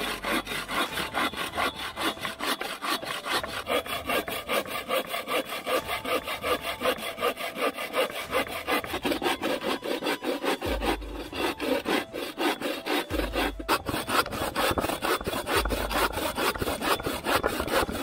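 A bow saw cutting through a wooden plank by hand, in quick, even back-and-forth strokes.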